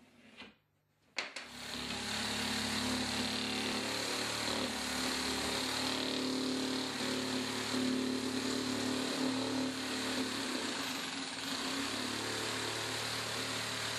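Electric power shear running steadily as it cuts through a fiber cement board, starting about a second in.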